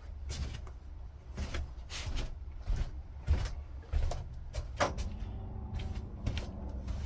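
Small metal hand tools being handled, irregular light clicks and scrapes, over a low steady hum. This is the work of getting the O-ring out of a motorcycle carburettor's mixture-screw bore.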